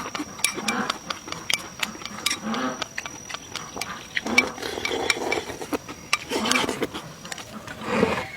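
Eating sounds: many small sharp clicks of utensils against a bowl or dish, with softer chewing and mouth noises between them.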